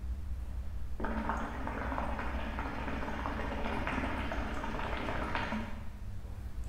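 Water bubbling in the glass base of a Corsair Lava hookah as smoke is drawn through the hose. The continuous gurgle starts about a second in and stops near the end, over a low steady hum.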